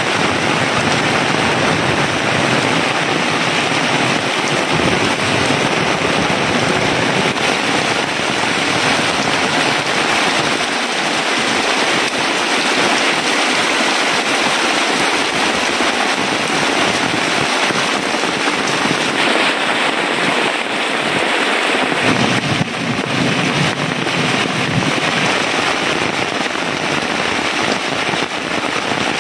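Heavy rain pouring steadily, a dense unbroken hiss of falling drops.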